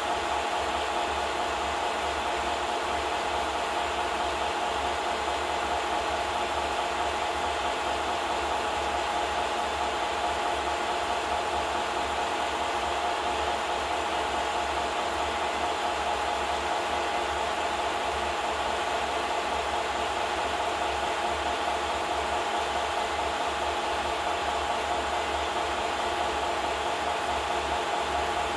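Film projector running: a steady whir and hiss with a low hum, unchanging throughout.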